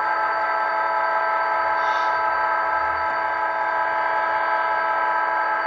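A model diesel locomotive's digital sound decoder sounding a recorded multi-tone air horn, held as one long steady chord over a steady hiss.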